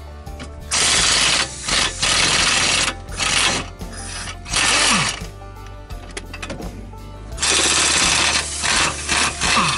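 Impact wrench run in about six short bursts, hammering loose the bolts of a brake caliper.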